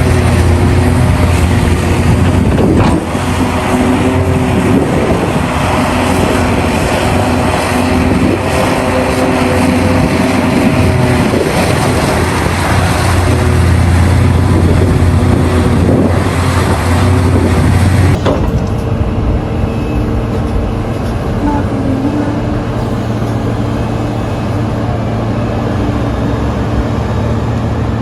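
Heavy diesel earthmoving machinery running steadily: large hydraulic excavators and dump trucks at work, with a deep engine drone. The sound changes abruptly about two-thirds of the way through, becoming thinner and a little quieter.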